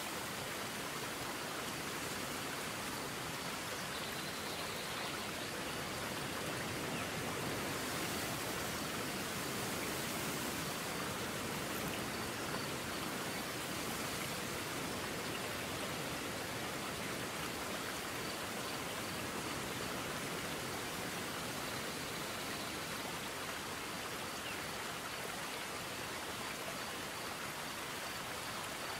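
Steady rushing of water from a small cascading waterfall and the creek below it.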